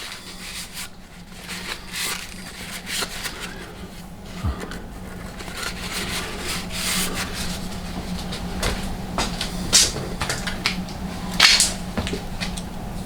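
Myford Super 7B lathe running with a steady low hum, with intermittent scrapes and clicks of metal being worked or handled; the loudest clicks come near the end.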